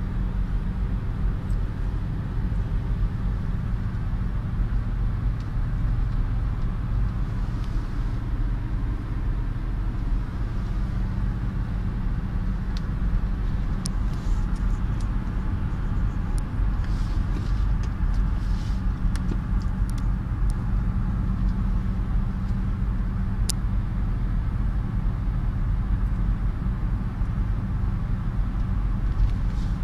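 Honda CR-V's 2.0-litre engine, running on LPG, cruising steadily at about 2000 rpm, heard from inside the cabin as a low even hum with tyre and road noise. A few light clicks come in the middle.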